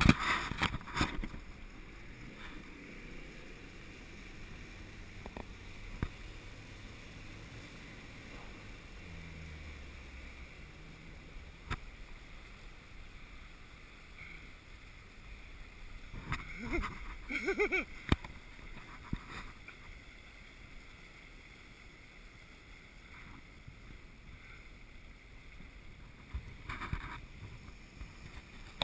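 Land Rover Defender 110 wading through a river: water rushing and splashing around the vehicle, with a low engine hum underneath. There are louder splashing surges at the start and again about two-thirds of the way through.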